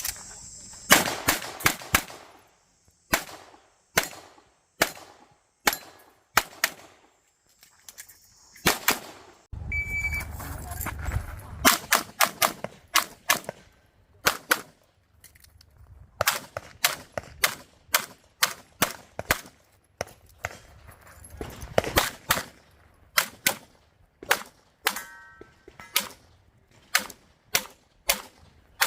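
1911-pattern pistol firing rapid shots, mostly in pairs and short strings, with short pauses between groups, as on an IPSC course of fire.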